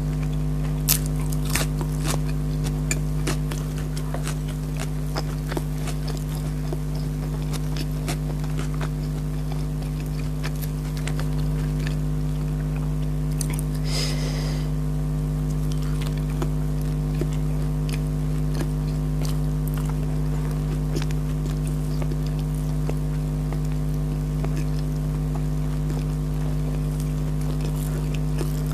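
A person eating keema naan and salad, with scattered small chewing and biting clicks over a steady low hum. A brief hiss comes about fourteen seconds in.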